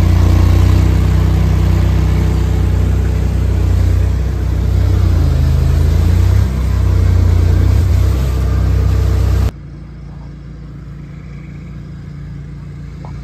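Argo amphibious ATV's engine running steadily up close as it drives through a shallow creek, with water splashing beside it. About nine seconds in the sound cuts off suddenly to a much quieter outdoor background.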